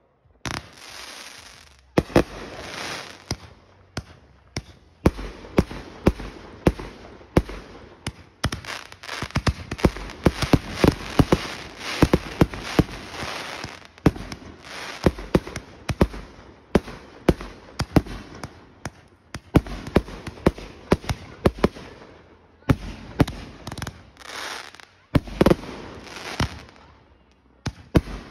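Aerial firework cakes firing in rapid volleys of launch thumps and bursting shells, with crackling between the bangs. The barrage begins about two seconds in and carries on with only brief lulls.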